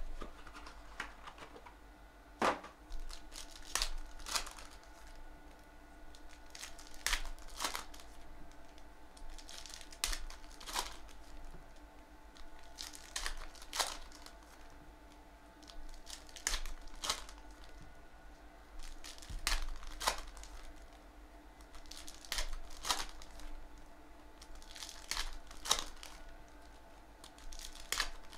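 Foil trading-card packs being torn open and crinkled by hand, in short crackling bursts every second or two, over a faint steady hum.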